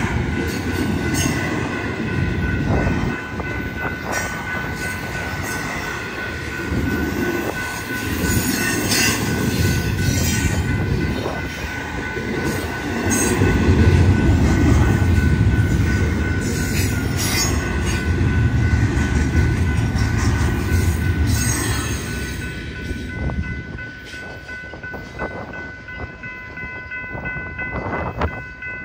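Double-stack intermodal freight cars rumbling and clacking over a road crossing, with the crossing's warning bell ringing steadily. The last cars pass a little over 20 seconds in and the rumble fades, and the bell stops near the end as the crossing clears.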